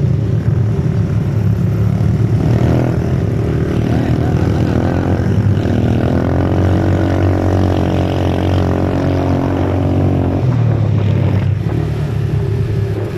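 ATV engine running under way. Its pitch rises about five seconds in, holds higher for several seconds, then drops back about ten seconds in.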